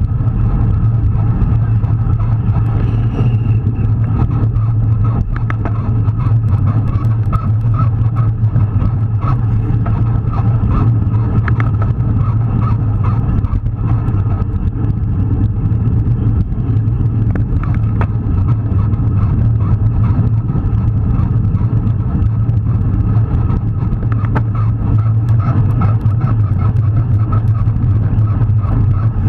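Steady wind rush and road rumble on the microphone of a bike-mounted action camera, riding at speed in a bunch of road cyclists.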